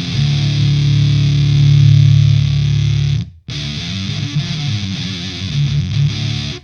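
Electric guitar played through a Gamechanger Audio Plasma Pedal high-voltage fuzz, with its low-frequency knob turned up near the end of its range, giving a heavily distorted, bass-heavy tone. A held chord rings for about three seconds, cuts off abruptly, then the playing resumes.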